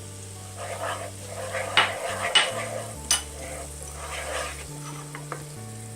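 A utensil stirring and scraping garlic butter sauce in a pan over low heat, with a light sizzle. A few sharp clinks of metal on the pan come in the middle of the stirring.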